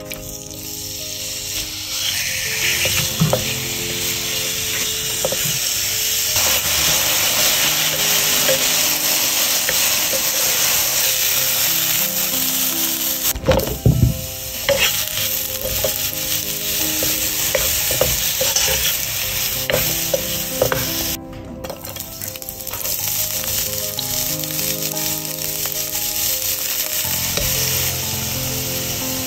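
Oil sizzling steadily in a nonstick frying pan as chicken pieces, then sliced mushrooms, then chopped onion with butter fry in it, with a few sharp knocks about halfway through.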